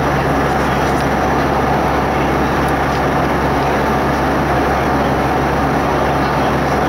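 Steady cabin noise of a jet airliner in cruise: an even rush of engine and airflow noise with a low steady hum underneath.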